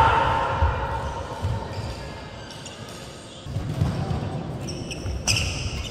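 Badminton players' footsteps thudding on a wooden gym floor, with a short call from a player at the start and one sharp racket strike on a shuttlecock near the end.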